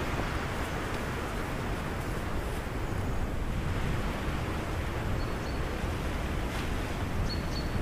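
Steady wind noise: wind rushing through the bare trees and buffeting the microphone.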